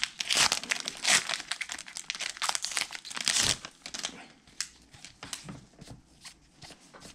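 Shiny foil wrapper of a SkyBox basketball card pack crinkling as gloved hands open it and pull the cards out: a dense run of crackles for about three and a half seconds, then sparser, lighter ticks as the cards are handled.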